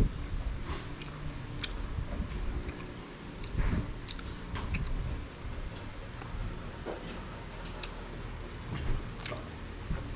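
Close-miked eating: chewing and biting, with many short, scattered clicks.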